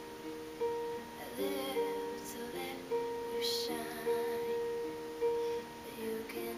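A woman singing a slow song over strummed acoustic string-instrument chords, with a new strum about once a second.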